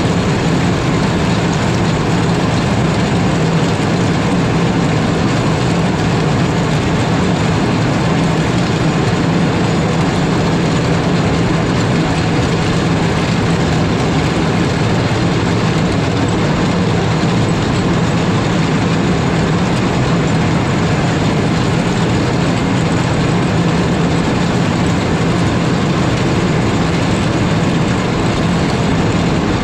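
Cat 140M3 motor grader's front blade, fitted with triangle-toothed bit boards, scraping along an ice-covered gravel road and shattering the ice: a loud, steady grinding noise over the grader's diesel engine.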